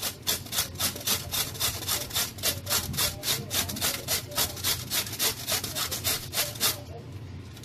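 A carrot being grated on the coarse side of a metal box grater: quick, even rasping strokes, about five a second, that stop about seven seconds in.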